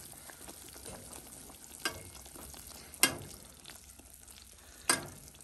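Butter and brown sugar caramel bubbling in a saucepan while a whisk stirs through it, with three sharp knocks of the whisk against the pan.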